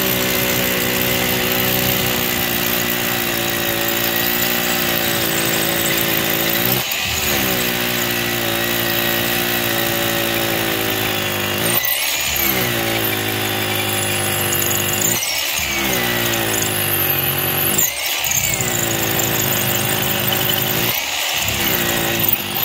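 Power drill boring a half-inch hole through a concrete slab about 4 inches thick. The motor runs steadily, then about five times, every three seconds or so, it briefly drops out and spins back up.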